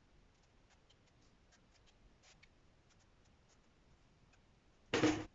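Faint scattered light ticks and clicks, then one loud short thump near the end.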